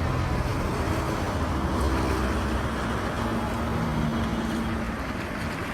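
Street traffic: motor vehicle engines running and passing over a steady hiss of road noise.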